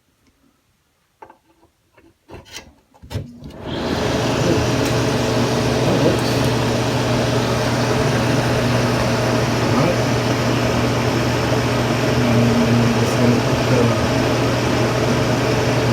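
Newly installed NuTone bathroom exhaust fan switched on after a few faint clicks, spinning up in about half a second to a loud, steady rush of air with a low hum. The replacement fan motor is running.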